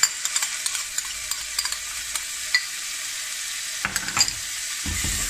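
Chopped onion and garlic frying in olive oil in a saucepan, sizzling steadily, as chopped red pepper goes in. Sharp clinks of a metal spoon scraping the pepper off a plate into the pan come throughout, with a few knocks about four seconds in.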